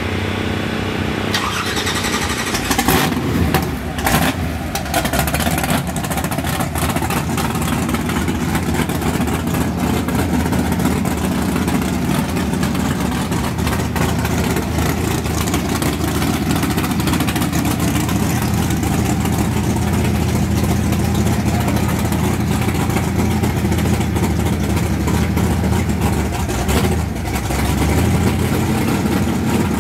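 Nitrous Buick Regal drag car's engine starting up about three seconds in, then running at a steady idle.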